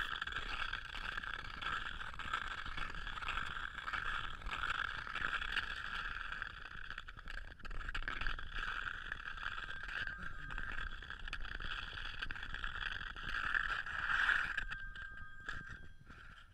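Ice skate blades scraping and rattling over rough, rutted ice in a steady continuous run, fading near the end.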